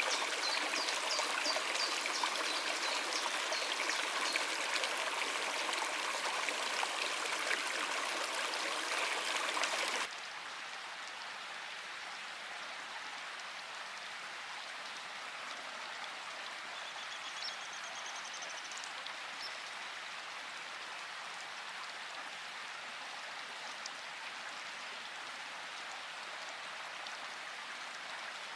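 Running water of a stream or waterfall, a steady rushing hiss. About ten seconds in it cuts suddenly to a quieter, thinner water hiss. Faint high chirps are heard near the start and again later on.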